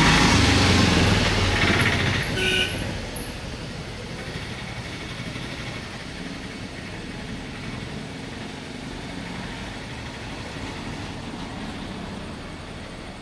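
A motor vehicle's engine passing close, loud at first, then a short horn toot about two and a half seconds in, fading to steady distant traffic noise.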